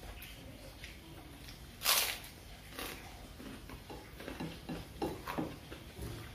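A large kerupuk cracker snapped by hand with one sharp, crisp crack about two seconds in, followed by a run of shorter crackling and crunching sounds as it is broken up and eaten.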